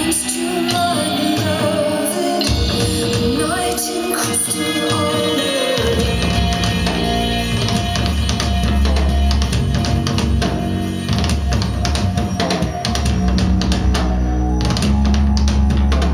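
Rock song with drums played back through Wharfedale Crystal 40 hi-fi speakers. A heavy, continuous bass line comes in about six seconds in.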